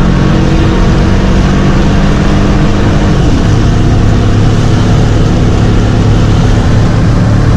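Loud, steady vehicle engine running while driving, with road noise; its tone shifts about three seconds in.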